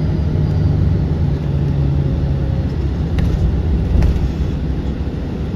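Aircraft engines making a loud, steady low rumble, with a few held low tones under it.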